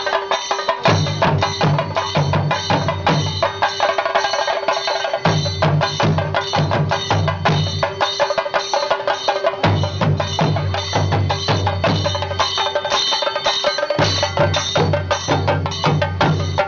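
Fast percussion music: rapid, dense drum strokes over a held tone, with a deep drum layer that drops out for a moment about every four seconds.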